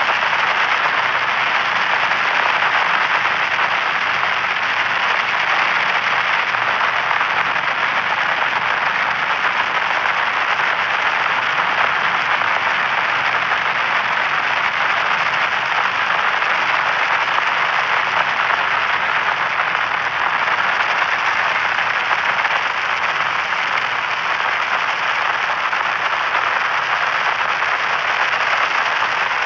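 Radio frequency static: a steady, dense crackling hiss, like an untuned satellite radio channel, with no signal coming through.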